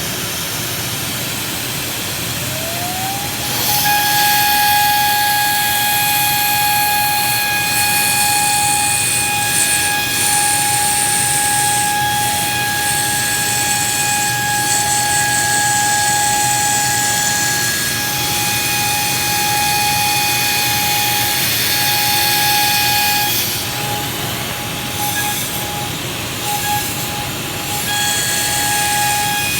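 Electric power tool motor spinning up with a rising whine about three seconds in, then running at a steady high whine under a loud hiss. The hiss eases off about 23 seconds in and comes and goes near the end.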